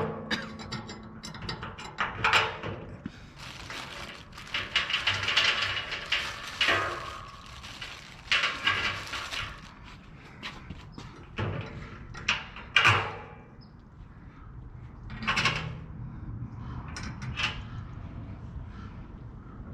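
Irregular clunks and scrapes of metal stove-kit parts being handled and fitted to a steel drum, with a longer rasping stretch from about four to ten seconds in.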